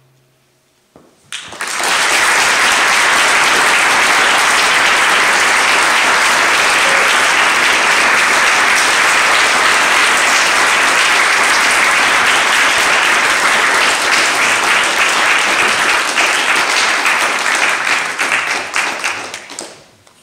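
Audience applauding, starting about a second and a half in and holding steady, then dying away near the end.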